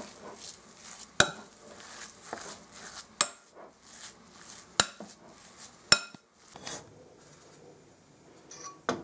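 Metal spoon stirring thick curd-and-flour dough in a glass bowl: soft scraping broken by four sharp clinks of the spoon against the glass.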